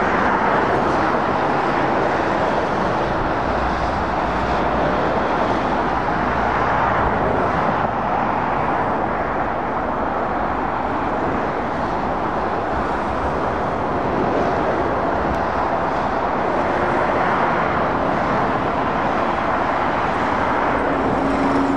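Steady motorway traffic: the tyre roar and engines of cars, vans and heavy lorries passing in a continuous stream.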